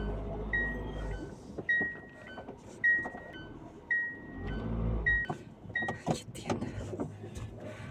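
A car's warning chime dinging about once a second, six times, over the low rumble of the idling engine, then a few knocks and clatters toward the end.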